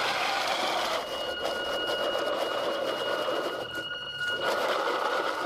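3D-printed RC tank running on its 775 DC motors, the motors whining through printed helical-gear gearboxes and chain-and-sprocket drives with a steady mechanical rattle. A thin high whine comes in about a second in and drops out near the end.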